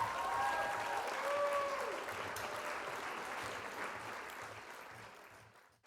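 Crowd applause, slowly fading out until it is gone near the end.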